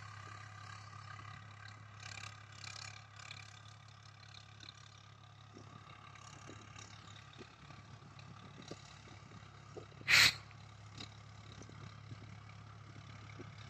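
Distant Swaraj 855 tractor's diesel engine running steadily under load as it pulls a tillage implement across the field. A short loud burst about ten seconds in.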